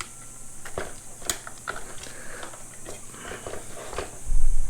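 Light clicks and rattles of plastic steering-wheel trim pieces being popped off and handled, with a sharper click about a second in and a dull low thump near the end.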